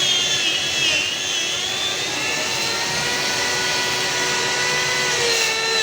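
Electric power sander running on the wood of a speaker cabinet, a steady motor whine whose pitch wavers slightly as it works the surface.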